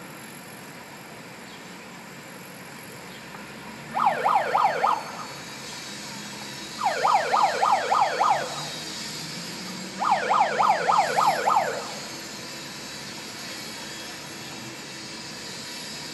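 Electronic alarm sounding in three bursts of rapid, falling chirps, about six chirps a second, over a steady city background hum.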